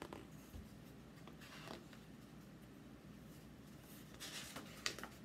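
A few faint paper rustles as the pages of a hardcover picture book are handled and turned, with a soft click near the end.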